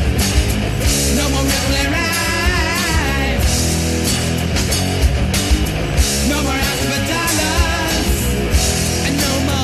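Hard rock band demo recording from 1993, playing loud and dense with a steady drum beat and a wavering lead line over the band.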